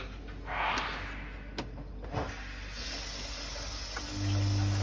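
Potterton Performa 28 combi boiler starting up for hot water once its micro switch is back in place. A short hiss and a sharp click come first, and about four seconds in a steady low hum comes on as the boiler runs.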